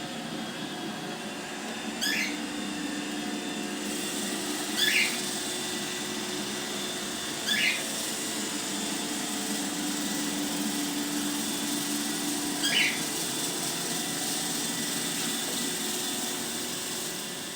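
iRobot Roomba robot vacuum running steadily on its cleaning run, its suction motor and brushes making a continuous hum. Over it a bird gives four short chirps that fall quickly in pitch.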